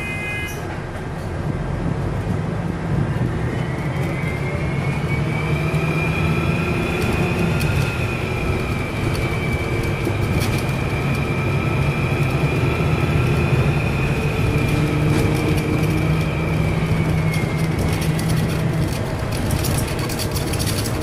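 City bus diesel engine pulling under load, with a loud turbocharger whistle. The whistle rises in pitch about three seconds in, holds steady for some ten seconds, then falls away near the end, over a constant engine rumble and a few rattles.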